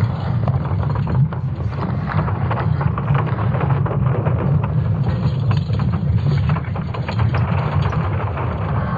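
Sonification of Earth's magnetic field from ESA Swarm satellite data: a steady deep rumble with creaking and crackles throughout.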